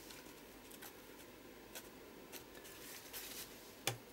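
Faint rustling and dabbing of a crumpled paper towel pressed onto wet paint to lift the colour, with one sharp tap near the end.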